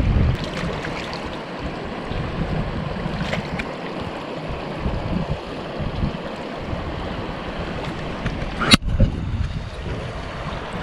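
Wind buffeting the microphone over the steady rush of a trout stream, with gusty low rumble. A sharp click about three-quarters of the way through, after which the sound changes abruptly.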